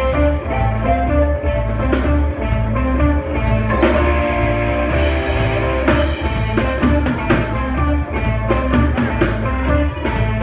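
Live band playing an instrumental passage on keyboards, electric guitar and drum kit, with deep bass notes underneath.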